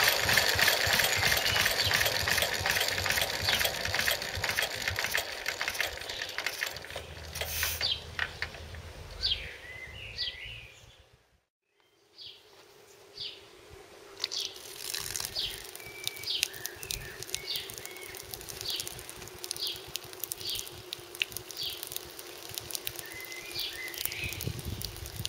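A 1939 Lister D single-cylinder stationary engine running on paraffin and belt-driving a blower, fading away over about ten seconds. After a short silence, birds chirp repeatedly over a faint steady hum.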